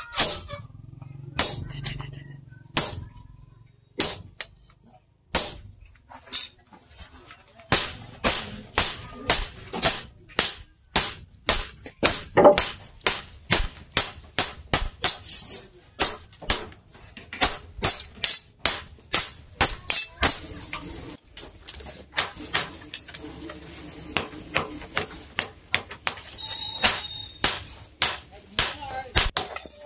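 Hand hammer striking a sword blade on a steel post anvil: sharp, ringing metal-on-metal blows, a few spaced-out strikes at first, then a steady rhythm of about two blows a second.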